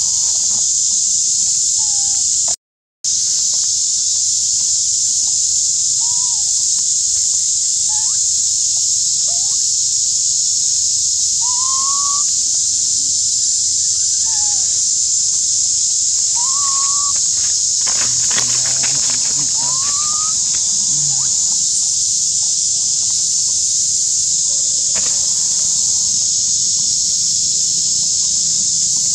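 Steady high insect drone, with short rising chirping calls every second or two. The sound drops out briefly about three seconds in, and there is a patch of clicks about two-thirds of the way through.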